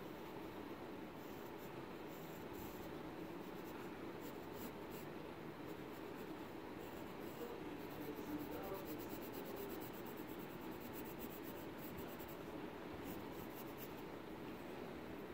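Graphite pencil scratching across paper, shading in quick repeated strokes.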